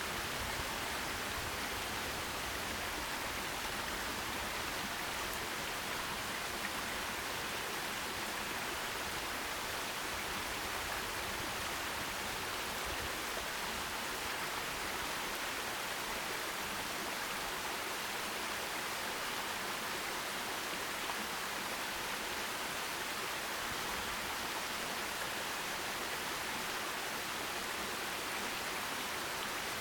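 Forest stream water rushing over rocks in a steady, even hiss.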